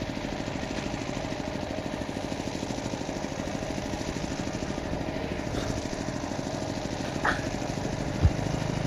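An engine running steadily with an even, rapid pulse. There is a brief short call about seven seconds in and a single knock near the end.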